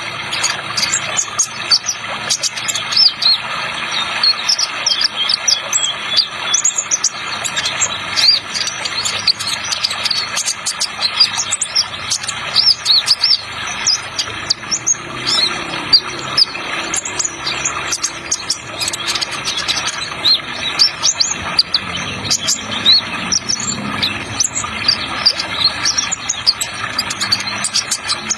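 Kolibri ninja trotol sunbird twittering, with rapid short high chirps one after another, over a steady rush of running water added as a sound effect.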